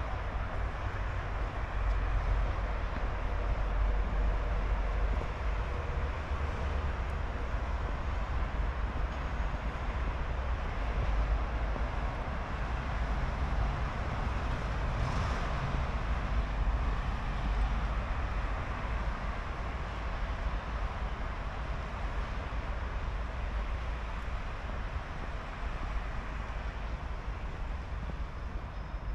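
Steady outdoor city street background: a continuous low rumble with a wash of traffic and street noise, no single event standing out.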